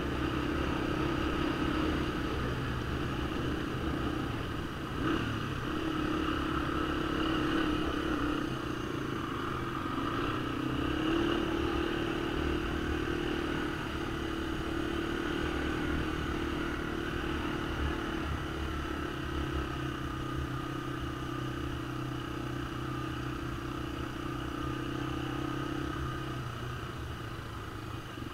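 Honda ATC 250SX three-wheeler's four-stroke single-cylinder engine running under way, its note shifting up and down a few times with the throttle. There is a brief knock about five seconds in.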